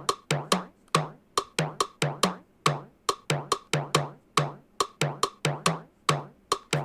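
Teenage Engineering drum-machine beat: short sampled percussion hits, each a sharp click with a brief low thump, playing a steady repeating syncopated pattern of several hits a second, around 140 BPM.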